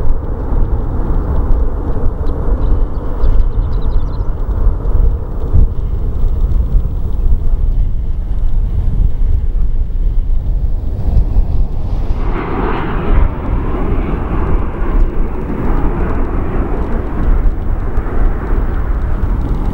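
Jet engine noise from a Southwest Airlines Boeing 737 moving along the runway. It grows clearly louder about twelve seconds in and stays loud, over a constant low rumble.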